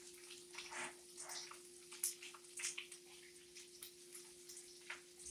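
Sausage and bacon frying in a pan, with a soft sizzle and irregular crackles and pops of hot grease, over a steady low hum.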